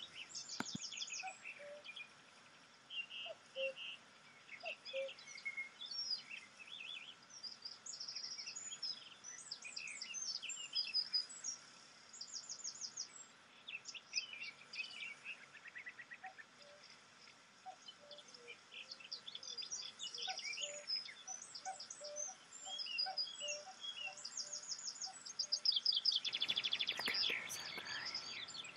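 Forest birdsong: several songbirds chirping and trilling over one another in short, scattered phrases, with a dense run of rapid trills near the end.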